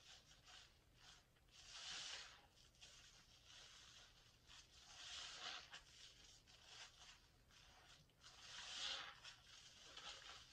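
Faint wet squelching and fizzing of a soapy sponge squeezed by hand in thick lather, with three louder squeezes about two, five and nine seconds in.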